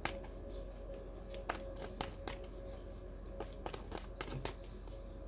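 Tarot cards being handled: scattered light clicks and taps, irregularly spaced, over a faint steady tone.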